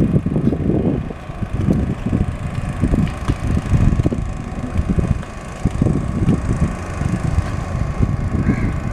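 Wind buffeting the microphone in irregular gusts aboard a moving boat, over a faint steady hum.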